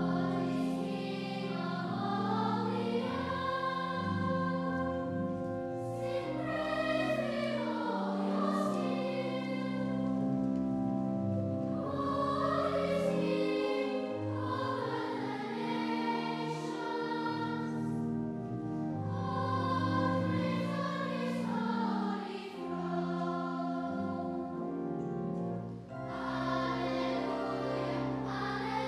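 Children's choir singing an anthem with keyboard accompaniment, voices held on long sustained chords over steady low notes.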